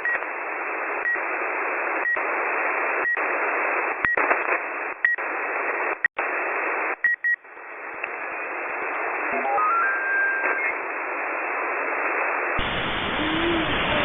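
Shortwave radio receiver hissing with static, with a short high beep about once a second and brief dropouts. A tone steps upward in pitch partway through, and near the end the hiss suddenly turns fuller and wider.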